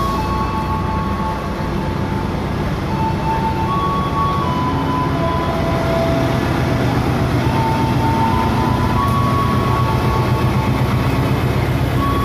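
Station bell melody played over loudspeakers, a simple tune of single notes stepping up and down. Under it, the steady rumble of a KAI passenger train rolling along the platform.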